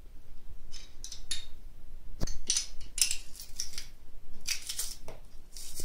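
Metal hand-held garlic press crushing garlic cloves, its hinged handles squeezed and opened again and again: a run of short clicks and crunching strokes.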